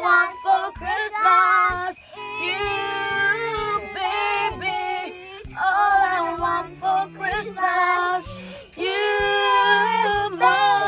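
A woman and young girls singing a Christmas pop song over a backing track with jingle bells.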